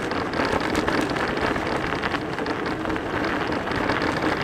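Tyres of a Teewing Mars XTR electric scooter rolling over hard-packed snow, a steady crackling hiss full of tiny clicks.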